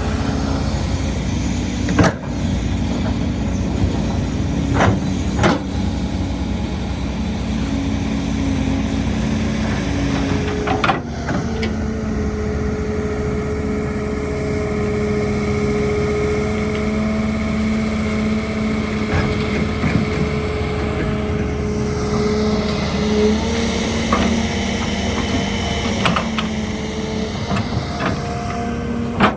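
Heavy construction machinery working: a steady diesel engine drone with a whining tone through the middle stretch, broken by a few sharp clanks and knocks, about two seconds in, twice around five seconds, near eleven seconds, and a couple more late on.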